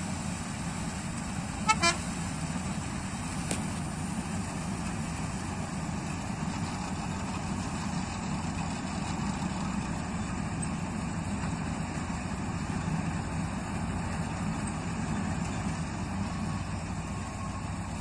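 Combine harvester running steadily as it cuts wheat, a continuous low drone of engine and threshing gear. About two seconds in, a horn gives two short toots over it.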